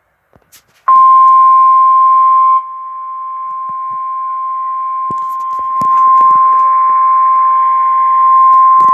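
Emergency Alert System attention tone for a severe thunderstorm warning: a single steady high beep near 1 kHz, like the 1050 Hz NOAA Weather Radio warning alarm, starting about a second in and holding on. It drops sharply in loudness about two and a half seconds in, then slowly grows louder again.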